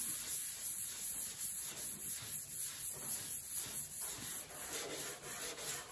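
320-grit sandpaper on a hand sanding block lightly rubbing over cured glazing putty on a fiberglass panel: a soft rasping hiss in even, quick back-and-forth strokes.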